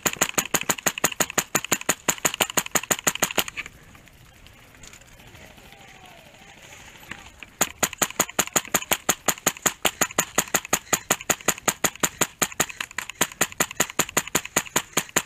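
HPA-powered airsoft rifle (Echo1 SR16 with a Wolverine SMP drop-in kit) firing full-auto cover fire: a burst of about ten shots a second for three and a half seconds, a pause of about four seconds, then a longer burst of about seven and a half seconds.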